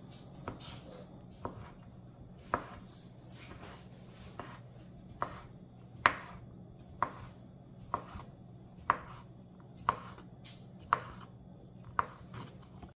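Knife chopping through sausage on a cutting board, one sharp knock about every second.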